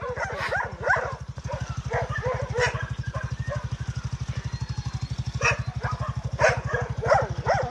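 Many shelter dogs barking and yelping in scattered, overlapping calls, over a steady low throb pulsing about ten times a second.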